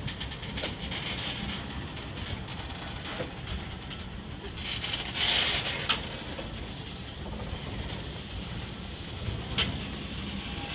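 Freight train of loaded flatcars rolling slowly past: a steady low rumble with scattered clanks and clicks from the wheels and couplings, and a louder high-pitched burst about five seconds in.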